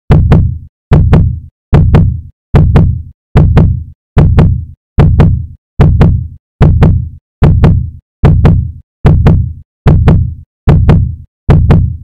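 Heartbeat sound effect: a loud, steady double beat about every 0.8 seconds, some 75 beats a minute, with dead silence between beats.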